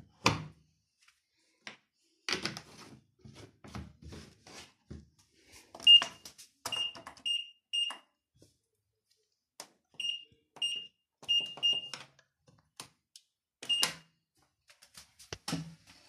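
LG WD-80490S front-loading washing machine: its detergent drawer pushed shut with a sharp clack just after the start, followed by scattered clicks of handling and buttons, and about nine short, high, steady beeps from the control panel as the program dial and buttons are worked.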